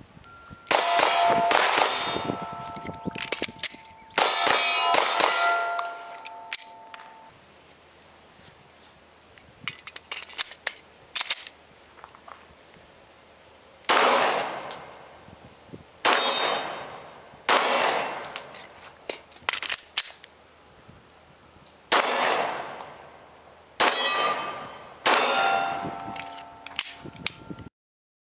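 A Glock 19 9mm pistol fired in several quick strings of shots at steel targets, each hit followed by the ringing of the struck steel plates. The sound cuts off suddenly near the end.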